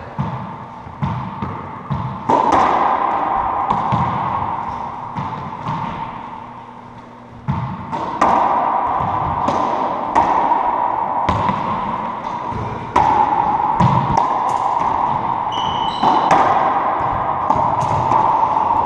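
Racquetball rally: the hollow rubber ball cracking off racquets, the front wall and the hardwood floor, one sharp hit every second or so, each ringing on in the enclosed court.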